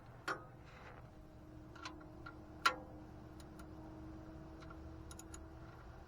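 Metal tools clinking and tapping as they are handled: a few sharp clicks, with one louder metallic clink about two and a half seconds in that rings on faintly.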